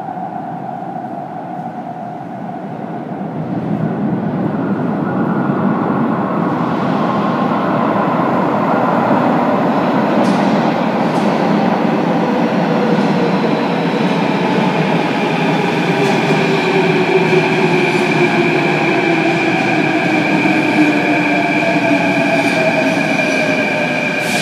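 Athens Metro Line 3 train approaching through the tunnel into the station. The rumble swells about four seconds in and stays loud, with whining tones that fall in pitch as the train slows, and it reaches the platform near the end.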